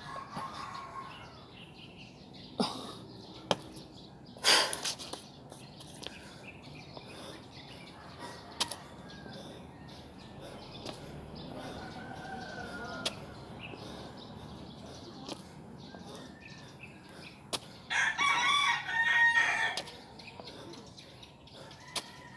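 A rooster crows once, loud and about two seconds long, near the end, with a fainter call about halfway through. A few sharp knocks come in the first few seconds.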